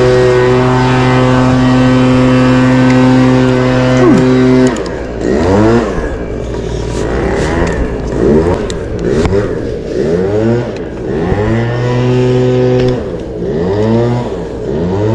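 Two-stroke chainsaw running at a steady fast idle, then revved up and down in quick repeated blips for several seconds, then settling back to a steady idle near the end.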